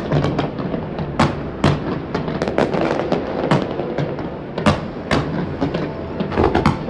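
Fireworks display: a dense barrage of sharp bangs and pops, several each second and uneven in strength, over a steady crackling wash.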